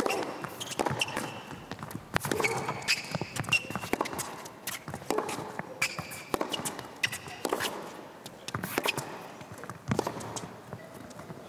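A tennis rally: the ball is struck sharply by rackets back and forth, starting with a serve. Short high squeaks come from players' shoes on the hard court.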